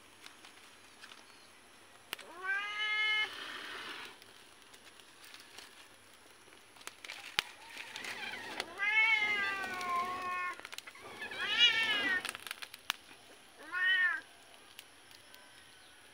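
Domestic cat meowing four times, the second call longer than the others.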